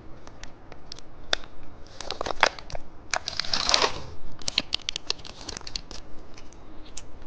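Plastic snack wrapper crinkling and being torn open: a run of small crackles and clicks, with a longer rustle about three and a half seconds in.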